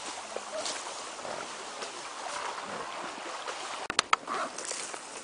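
Rustling and swishing of tall grass and undergrowth brushing past as an elephant carrying riders walks through it. A few sharp clicks about four seconds in are the loudest sounds.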